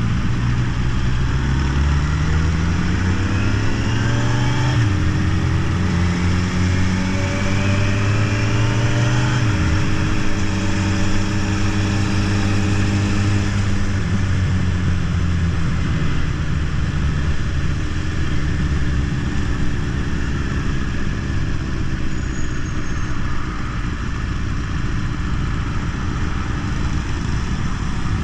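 Motorcycle engine heard from onboard, accelerating with its pitch rising and dropping sharply at two upshifts, about five and ten seconds in, then holding a steady cruise. In the second half the engine note sinks under a steady rush of wind and road noise.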